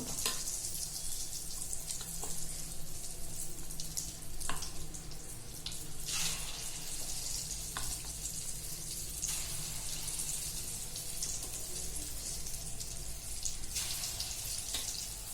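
Battered chicken pieces deep-frying in hot oil: a steady sizzle with a few scattered pops.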